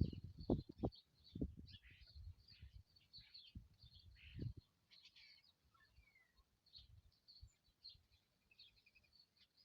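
Small birds chirping: many short, high calls overlapping throughout. Several low thumps come in the first half, the loudest sounds, then stop.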